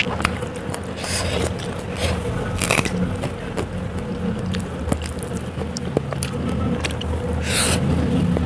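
Close-miked eating sounds: chewing and crunching of food, with many short wet mouth clicks and smacks, over a steady low background rumble.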